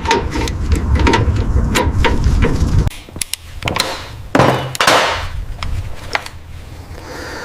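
Rapid tapping and knocking of tools on work pieces over a low rumble, cut off abruptly about three seconds in, then a few short scrubbing hisses and scattered clicks.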